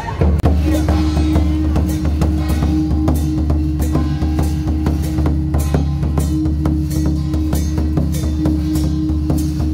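Big barrel drum and brass gong on a temple procession drum cart, beaten in a fast, dense stream of strokes over a steady held tone.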